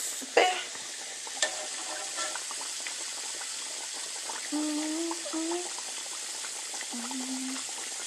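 Pork chops frying in a pan: a steady sizzle of hot oil, with a light click of a utensil on the pan about a second and a half in.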